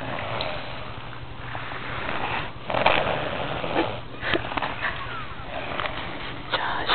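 A sleeping baby snoring: a run of uneven, noisy breaths, the loudest about three seconds in.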